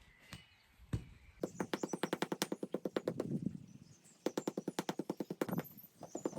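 A rapid run of sharp clicks, about ten a second, in two spells after a single knock, as the dust is cleaned out of a clogged vacuum cleaner filter.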